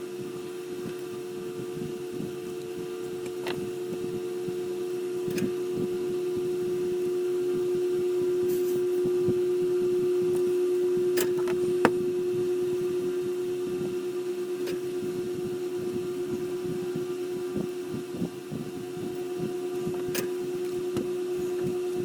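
Heat gun's fan motor running with a steady hum while shrinking heat-shrink tubing over wire joints, with a few light clicks over it.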